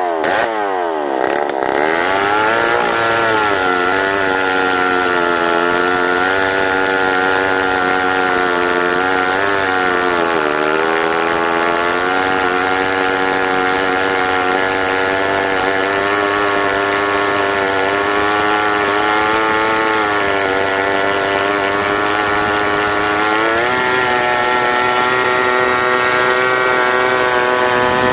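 Homelite 775G gear-drive two-stroke chainsaw, freshly rebuilt, running under load as its chain cuts through a large log. The engine pitch drops sharply as the chain bites in at the start, sags again about ten seconds in and recovers, then picks up a few seconds before the end.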